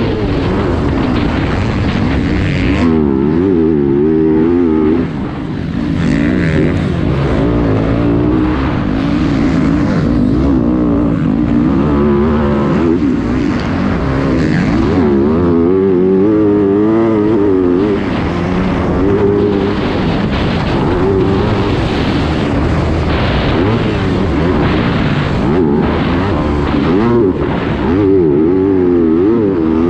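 Yamaha YZ250F's 250 cc four-stroke single-cylinder engine revving hard, its pitch rising and falling constantly with throttle and gear changes as the bike races around a dirt motocross track, with a short lull about five seconds in.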